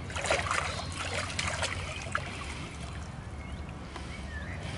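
Lake water splashing around hands and a large mirror carp held in the shallows as it is released, loudest for the first couple of seconds and then quieter sloshing, over a low steady rumble.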